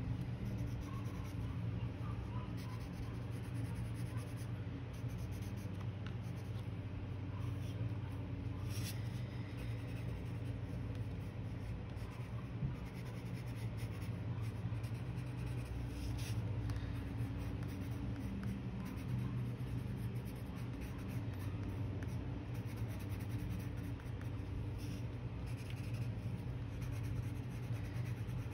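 Coloured pencil scratching across watercolour paper in continual strokes, over a steady low hum.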